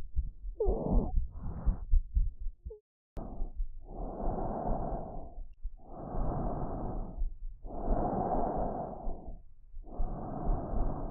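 Recorded lung sounds. In the first three seconds come short breaths carrying brief musical wheezing tones. After a short break come four long, even breath sounds about two seconds apart.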